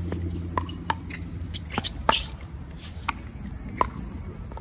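Pickleball paddles striking the hard plastic ball in a quick exchange at the net, with bounces on the hard court: a string of sharp pops, the loudest about two seconds in.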